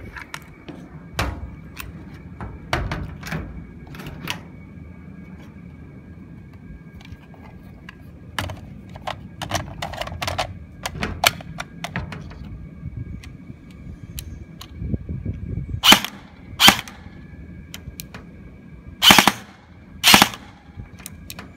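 Airsoft T91 rifle replica with electric blowback: a run of sharp mechanical clicks and clacks, then four short, loud bursts of firing in two pairs near the end.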